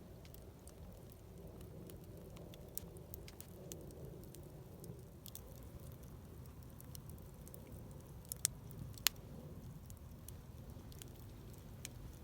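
Wood campfire burning with a low steady rumble, and scattered crackles and pops from the wood. Two sharper pops come about two-thirds of the way through.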